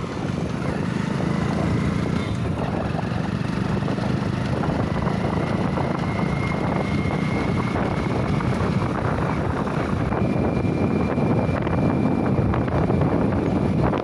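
A Hero Splendor motorcycle's single-cylinder engine running steadily while the bike cruises along the road. A faint, steady high whine sits above it.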